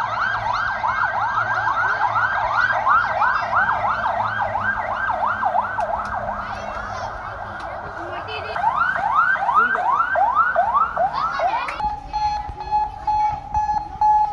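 Ambulance siren sounding a fast yelp: rising sweeps at about four a second, thinning out around six to eight seconds in. About twelve seconds in it switches to a steady single-pitch tone that pulses on and off.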